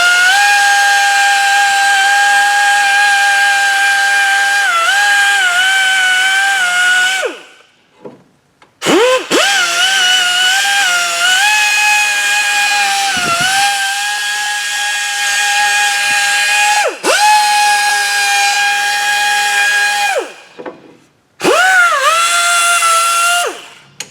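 Die grinder with a small burr bit whining at high pitch as it lightly knocks rust out of the wheel hub's mounting bore. It runs in three long bursts, and its pitch dips briefly each time the bit bites.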